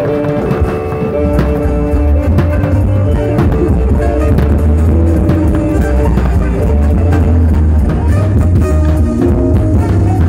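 Matachines dance music: a bass drum and a stick-played side drum beat a steady, driving rhythm, with a held melody line sounding over the drumming.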